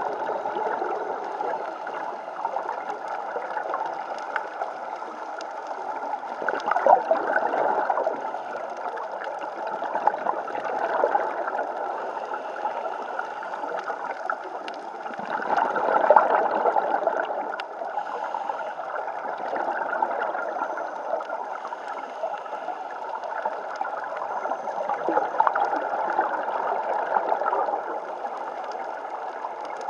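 Scuba regulator exhaust bubbles gurgling underwater, heard through the camera's underwater housing, swelling in bubbly rushes every few seconds with each exhaled breath.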